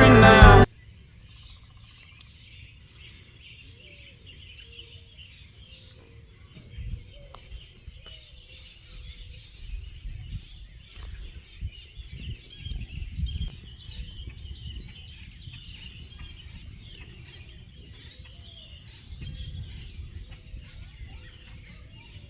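Birds chirping in many short, faint calls throughout, over an intermittent low rumble; a country song with guitar cuts off about half a second in.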